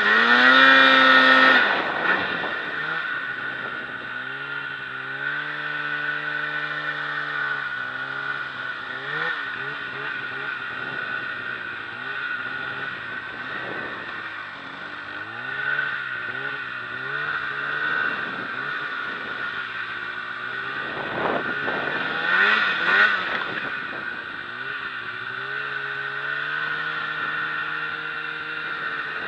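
Polaris snowmobile engine revving up and down as the sled pushes through deep powder, loudest in the first couple of seconds and again about three-quarters of the way through. A steady high whine runs underneath.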